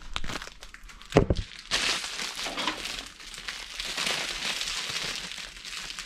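A sharp thump about a second in, then a plastic bag of sliced bread crinkling and rustling as it is handled.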